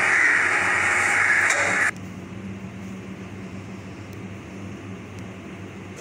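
A baking oven running with a steady hum. A loud hiss over it cuts off suddenly about two seconds in.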